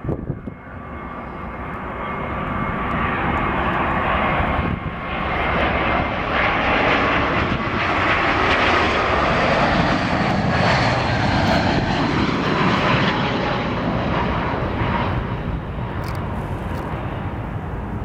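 Airbus A320's twin IAE V2500 turbofans on landing approach, passing low overhead: a whine over jet rush that builds for several seconds, is loudest around the middle, then fades as the plane moves away.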